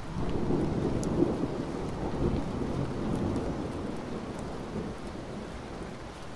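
Thunder rumbling over steady rain, the rumble fading slowly toward the end.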